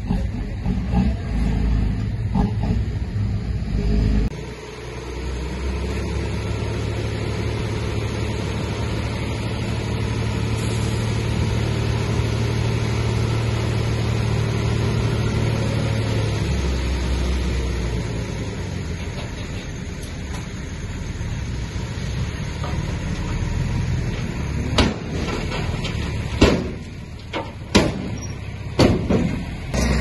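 Diesel engine of heavy earthmoving machinery working under changing load, running steadily through the middle. Several sharp knocks come in the last few seconds.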